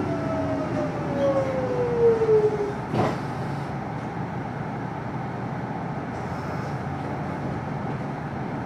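Electric commuter train braking to a stop at a station platform: the motor whine falls steadily in pitch as it slows, a single clunk sounds about three seconds in as it halts, and then the standing train hums evenly.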